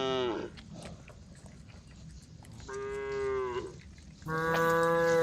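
Cows mooing: the end of one long call, a second full call in the middle, and a louder one starting near the end, each dropping in pitch as it fades.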